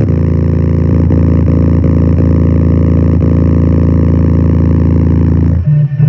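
boAt Stone 1200F Bluetooth speaker at full volume playing a bass-boosted track: a long, deep, sustained bass drone with faint ticks of the beat over it. Near the end it switches to a choppy, pulsing bass line.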